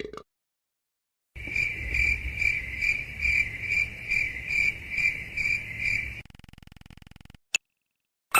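Cricket chirping sound effect, the stock "awkward silence" gag cue: a steady high chirp pulsing a little over twice a second for about five seconds, starting about a second in. It fades into a faint buzz, and a single short click comes near the end.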